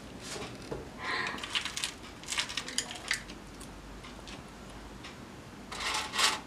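Metal jewelry clinking and rattling as pieces are picked through in a jewelry box, in scattered bursts: a cluster from about one to three seconds in and another near the end.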